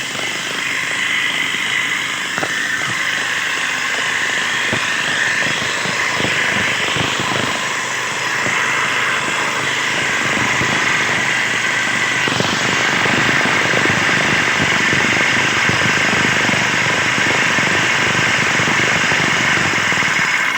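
Small two-stroke mower engine running at speed, its pitch shifting a few times. The sound ends abruptly.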